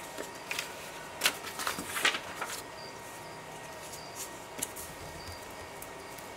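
Loose paper book pages being handled and laid down, with a few sharp rustles and taps in the first couple of seconds, then softer rubbing as a glue stick is spread across a page.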